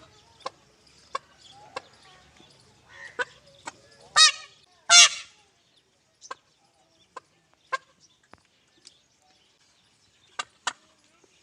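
Peahen clucking with short, sharp calls spaced about a second apart. About four and five seconds in come two much louder, longer calls.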